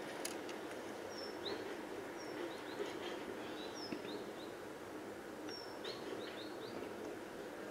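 Small birds chirping: short, high call notes, some falling and some hooked upward, repeated irregularly over a steady background hum, with a few faint clicks.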